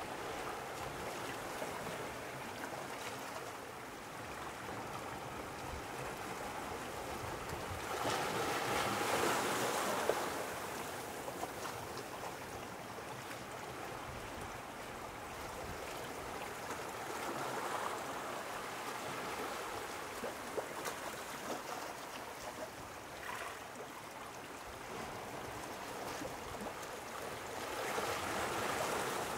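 Sea waves washing in a steady rush of water, swelling louder about eight seconds in and again near the end.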